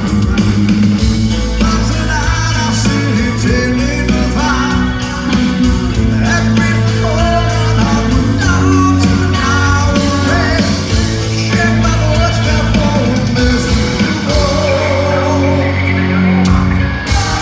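Live rock band playing: a male lead vocalist singing over electric guitars, bass guitar and drums.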